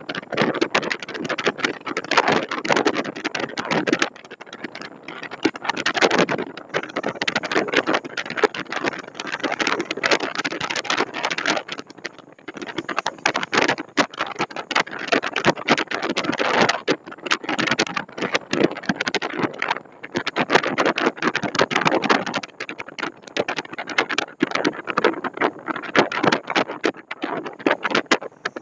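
Wind rushing over the microphone and road noise from a car driving along, loud and choppy, swelling and dropping in uneven gusts.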